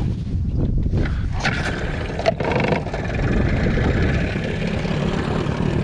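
Boat motor running steadily under way, a low even drone, with wind buffeting the microphone.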